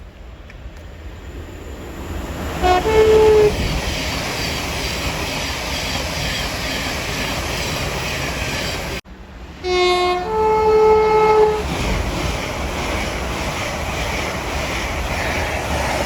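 Two-tone train horn sounded twice, each time a short lower note followed by a higher one, the second blast held longer, over the steady rumble and rush of a train on the line.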